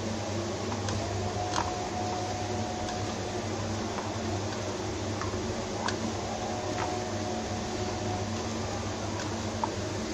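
Potato pieces coated in arrowroot being mixed in a bowl: soft squishing with a few light clicks, over a steady fan hum.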